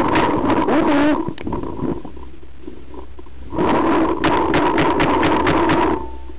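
Paintball marker firing in two rapid bursts, one at the start lasting about a second and a longer one of about two and a half seconds starting about three and a half seconds in.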